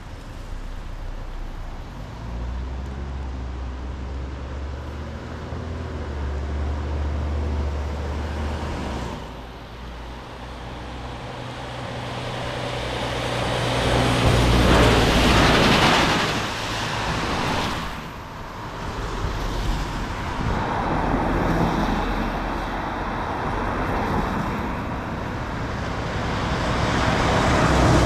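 Road traffic: a vehicle's engine drones low early on, then passing vehicles bring swelling tyre noise that peaks about halfway through, cuts off fairly sharply, and builds again near the end.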